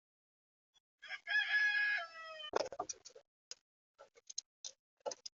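A rooster crowing once, one long call that drops in pitch at the end, followed by a string of short clicks and taps.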